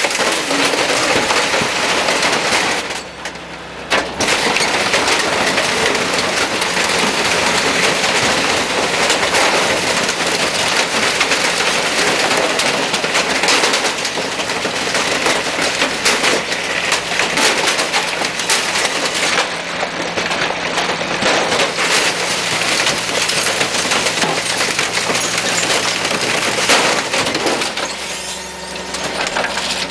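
Garbage truck compactor crushing discarded electronics and glass, with continuous cracking, crunching and breaking over the truck's steady engine hum. The crushing dips briefly about three seconds in and again near the end.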